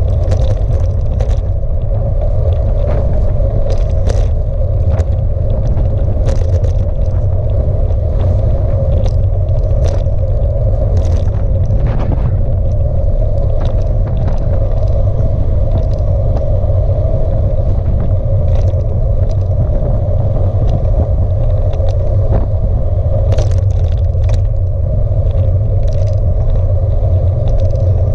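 Wind buffeting the microphone over the steady tyre rumble of a bicycle rolling along a tarmac lane, with frequent small knocks and rattles as it goes over bumps in the road surface.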